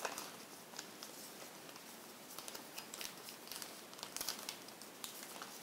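Origami paper rustling and crinkling faintly as a flap is opened, reverse-folded and pressed flat by fingers, with scattered small crackles of the creases.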